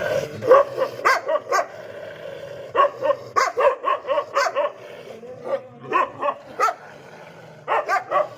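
A small dog yapping: quick runs of short, high-pitched barks, several a second, broken by brief pauses.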